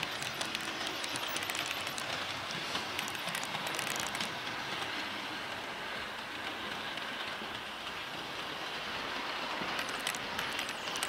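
Small electric model train running on its track, a fast clicking rattle of wheels on rails that is busiest in the first four seconds and again about ten seconds in, over a steady hiss.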